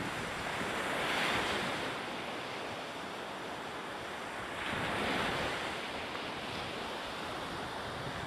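Sea water rushing and splashing past a fast-moving boat's hull, with wind buffeting the microphone. The rush of spray swells twice, about a second in and again around five seconds.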